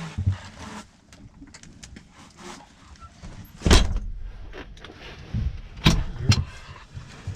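A few sharp knocks and clunks, about four seconds in and twice more about two seconds later, with low thuds and rustling handling noise between.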